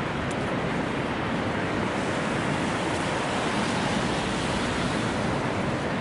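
Steady rushing of water, an even, unbroken noise.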